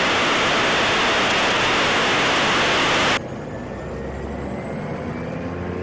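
Aircraft radio hiss, a loud steady static, cuts off abruptly about three seconds in as the squelch closes. A quieter low hum with faint steady tones from the PAC 750's turbine engine remains underneath.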